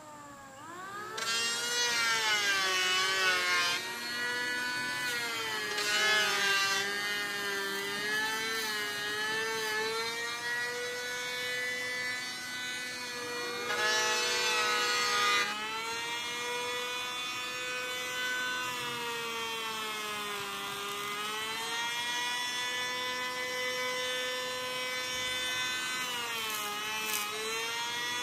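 Handheld electric power tool working wood: a steady motor whine that sags and recovers in pitch as it is loaded, with noisy spells of cutting about a second in, around six seconds and around fourteen seconds.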